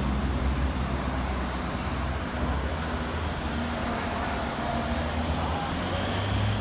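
City street traffic with a steady low engine hum.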